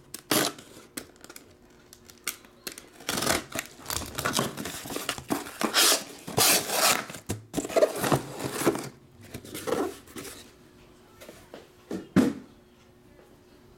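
Box cutter slitting packing tape on a corrugated cardboard shipping box, then cardboard flaps scraping and rustling as the box is opened and unpacked, in irregular bursts. A single sharp knock near the end.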